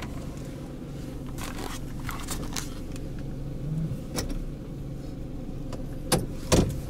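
Car engine idling, heard from inside the stationary car, with a few sharp clicks and knocks, the loudest two near the end.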